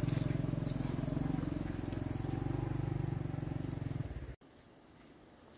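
Motorcycle engine running as the bike rides away up a dirt track, its sound fading gradually, then cut off abruptly about four seconds in, leaving only a quiet rural background.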